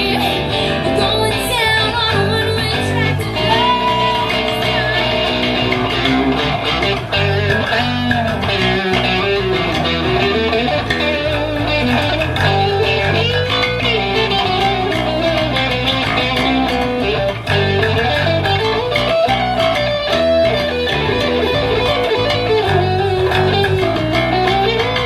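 Electric guitar and electric bass playing live in an instrumental passage with no singing: a lead line with bending notes over a steady bass part.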